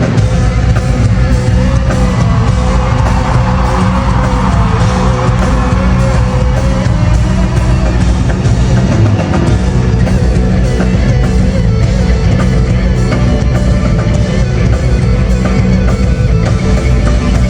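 Live band playing loud rock-style music, with heavy bass and guitar, heard through a phone microphone in a large arena.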